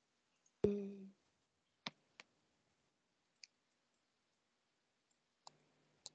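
Faint, scattered computer mouse clicks, about six spread over several seconds. The loudest comes about half a second in and is followed by a brief low hum.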